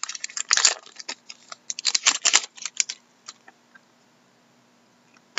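Upper Deck Artifacts hockey cards pulled from a torn foil pack and flipped through by hand: a run of crisp clicks and rustles for about three seconds, then it goes nearly quiet.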